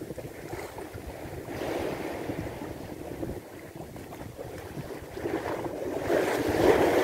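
Sea waves washing against the shore, with wind buffeting the microphone. A larger wave washes in near the end.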